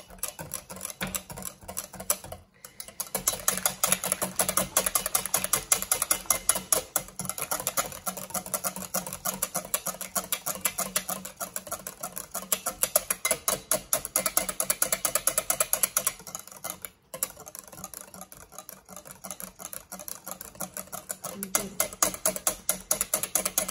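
Wire whisk beating butter and oil into a cream in a glass bowl: a rapid, steady run of clicks as the wires strike the glass, stopping briefly about two seconds in and again about seventeen seconds in.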